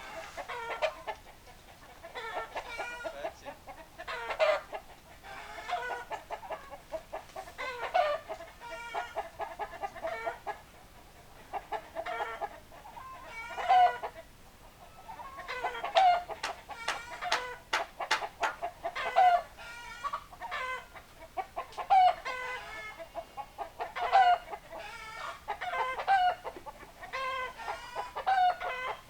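A flock of chickens clucking and calling, with louder squawking calls every few seconds. A quick run of sharp clicks comes about two-thirds of the way through.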